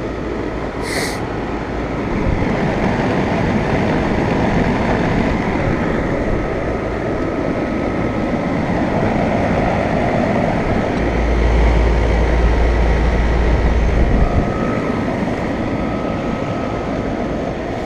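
Several 2015 Rheem Classic central air conditioner condensing units running: a steady whoosh of the condenser fans over the hum of the scroll compressors, with a faint high whine. A deep low rumble joins in a little past the middle for about three seconds.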